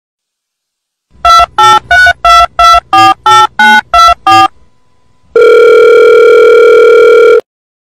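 Loud electronic beeps: a quick run of about eleven short beeps of slightly differing pitch, three or so a second, then after a short pause one long steady beep of about two seconds, like a telephone being dialled.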